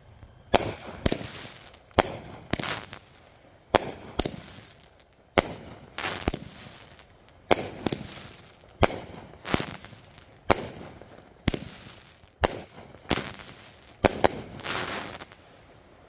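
A multi-shot aerial firework cake firing a long string of shots, each a sharp bang trailed by a short hiss. There are about twenty shots, irregularly spaced at one or two a second, and they stop shortly before the end.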